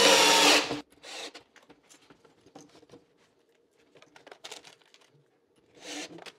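Cordless drill driver whirring briefly at the start as it drives a screw into a stainless-steel soft-close cabinet hinge, then faint scattered clicks and handling of the hinge and screws.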